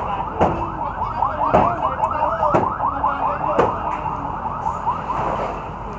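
An electronic alarm warbling in quick rising chirps, about five a second, which stops a little after five seconds in. Over it come sharp knocks about once a second, hammer or bar blows in the demolition of a small building.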